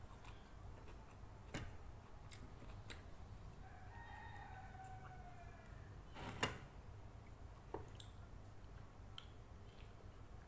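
Faint clicks and taps of eating rice by hand from a plate, with a sharper knock about six and a half seconds in. Midway, a distant animal call, drawn out and falling in pitch, lasts about a second and a half.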